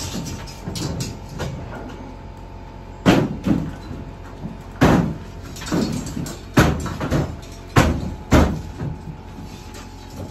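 Sheet-metal duct being knocked and worked into place between wall studs: a string of sharp bangs, about eight, irregularly spaced, starting about three seconds in, with softer handling clatter between.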